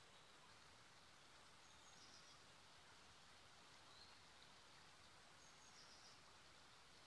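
Faint birdsong: a short high two-part call repeated about every three and a half seconds, with one softer chirp between, over a quiet steady hiss.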